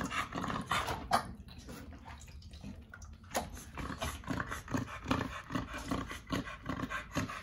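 Pocket bully dogs making low vocal and breathing sounds, in short rhythmic pulses about three or four a second through the second half, with a sharp knock about a second in.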